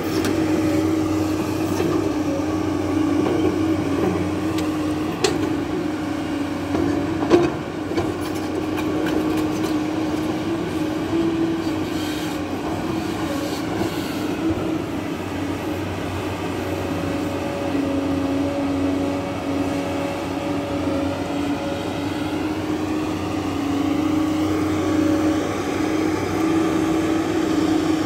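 JCB tracked excavator's diesel engine running steadily under working load as it digs and swings, its note wavering a little in pitch. Two sharp knocks come about 5 and 7 seconds in.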